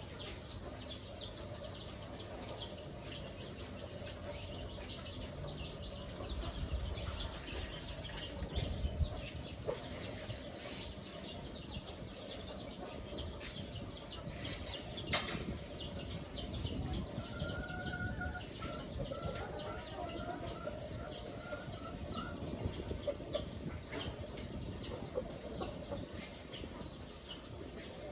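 Free-ranging domestic chickens clucking and calling, over a constant rapid high peeping, with a short run of repeated calls about two-thirds of the way through and a single sharp click about halfway.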